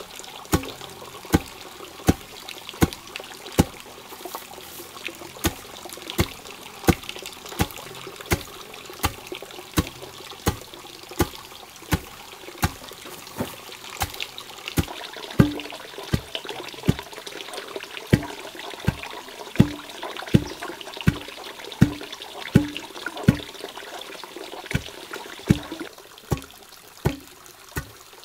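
A long wooden pestle pounding unhusked rice in a hollowed log mortar to hull the grain, in a steady rhythm of dull thuds at about three strikes every two seconds. Water trickles steadily behind it, thinning out near the end.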